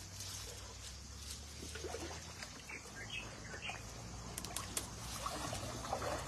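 Shallow stream water trickling and sloshing around a man's legs as he wades and gropes through the grass along the bank by hand, with a few sharp splashes or rustles about two-thirds of the way through.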